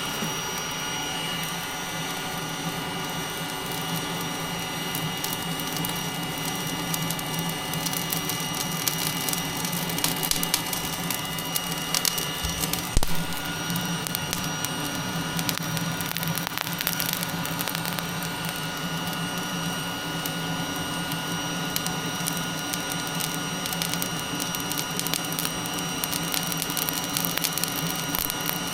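Looftlighter electric fire starter blowing hot air into lump charcoal: a steady fan whine. Scattered crackles come from the charcoal catching, and there is a single thump about 13 seconds in.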